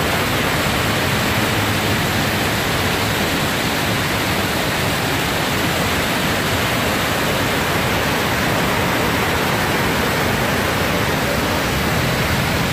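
Waterfall in full flood, swollen by heavy rain: a loud, steady rush of falling water.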